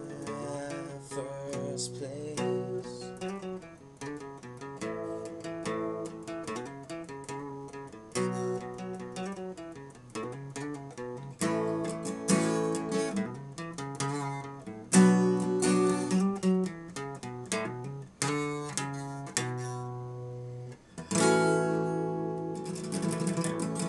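Solo acoustic guitar playing an instrumental passage of a song, picked notes and strummed chords with no singing. Near the end a chord is left to ring and fade, then the strumming comes back harder.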